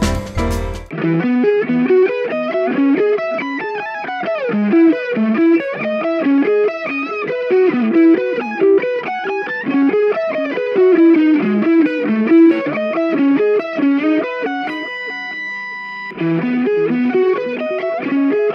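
Solo electric guitar playing a lead melody, single picked notes with some bent notes. One note rings and holds for about a second, then the melody starts again.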